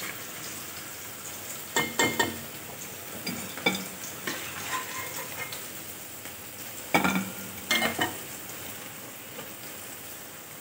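Hot oil sizzling steadily from deep-frying Maggi noodle balls, with a few sharp metallic clinks in short clusters as a utensil knocks against the pan and plate while the fried balls are lifted out.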